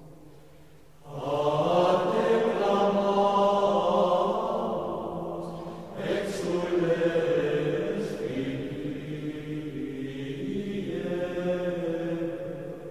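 Unaccompanied plainchant: voices singing slow, held phrases, with a new phrase starting about a second in and another about six seconds in.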